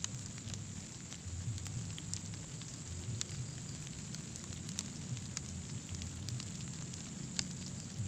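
Wind buffeting the microphone in a low, uneven rumble, with scattered sharp crackles and clicks throughout; the loudest click comes near the end.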